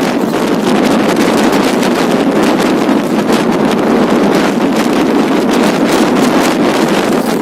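Steady, loud wind noise buffeting the microphone, with constant rough flutter.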